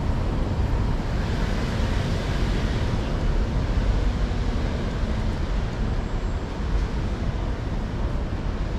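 Steady city street noise: a constant low traffic rumble and hiss with no distinct events standing out.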